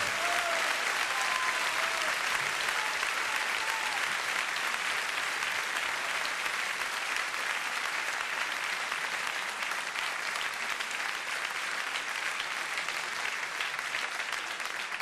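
Theatre audience applauding at the end of a song, a dense steady clapping that slowly eases off. The last held note of the music dies away as it begins.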